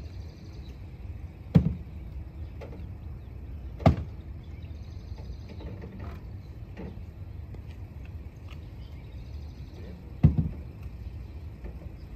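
Three sharp knocks, about a second and a half in, near four seconds and near the end, the first and last trailing off in a short rattle, over a low steady rumble.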